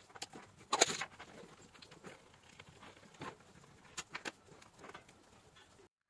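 A few light clicks and taps from handling a screwdriver as a T10 Torx bit is fitted into its handle. The loudest click comes a little under a second in, with smaller ones a few seconds later.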